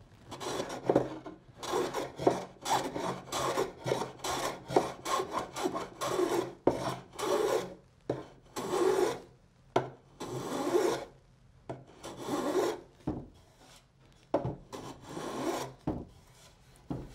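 Block plane shaving the chipped corner of a painted wooden drawer front: a long run of short rasping strokes with brief pauses between them, flattening out the break so a patch can be glued on.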